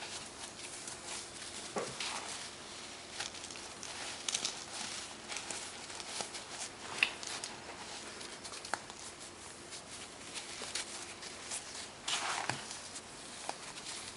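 Chunks of compressed baking soda being crushed, an irregular run of soft crunches and crackles with a few louder snaps.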